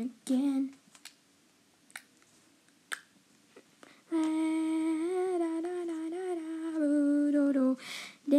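A person humming a wordless tune: a short note at the start, a quiet stretch with a few faint clicks, then a long wavering hummed phrase from about four seconds in.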